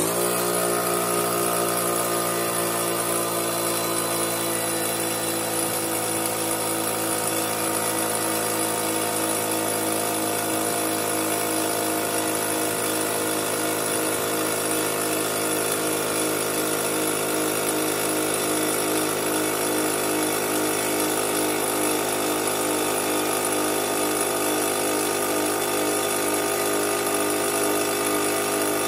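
Fortress 5-gallon, 1.6 HP portable air compressor motor and pump running steadily as it fills the tank. Its pitch sinks slightly as the tank pressure climbs toward the 225 psi cut-off of its newly replaced pressure switch.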